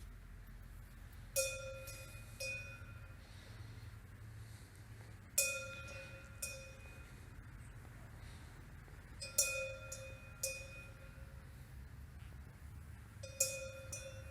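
A repeating bell-like chime: pairs of short ringing metallic strikes about a second apart, the pair coming back every four seconds, over a steady low hum.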